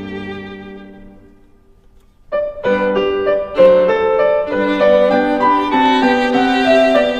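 Background music led by violin with piano: a phrase fades out in the first two seconds, a brief pause follows, and the music starts again at full level just over two seconds in.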